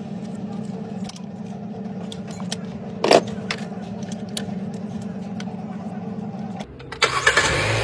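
Car engine running steadily, with scattered light clicks and one loud metallic clank about three seconds in. Just before the end the hum stops and a louder engine sound takes over.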